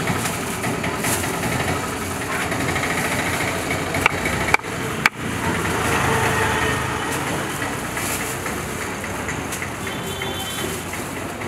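Street traffic: engines running and idling in a steady background din, with a couple of sharp clicks about four seconds in.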